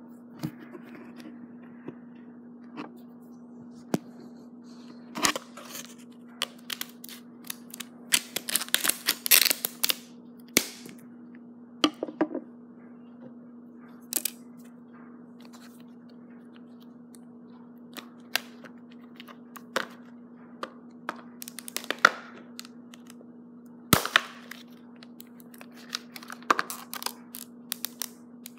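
Stiff plastic blister packaging crackling, clicking and snapping as it is handled and pried open by hand, in irregular bursts of sharp cracks with short gaps between.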